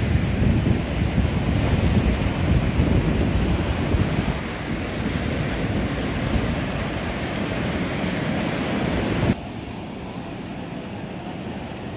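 Wind buffeting the microphone, with the wash of surf on the shore beneath it. About nine seconds in, the sound drops abruptly to a quieter, steady hiss.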